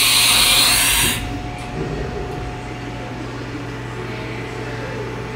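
Haas VF-4 vertical machining center running: a loud hissing rush cuts off suddenly about a second in, leaving a steady low machine hum.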